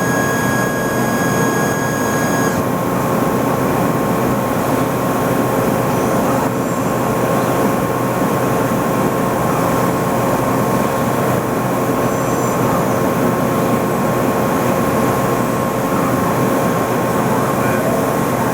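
Nakamura WTS-150 CNC turning center running, a loud steady machinery noise with a steady whine in it; a few higher tones stop about two and a half seconds in.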